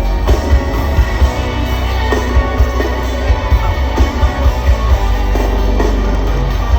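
Loud amplified music from a concert sound system during a sound check, with heavy bass and a steady beat.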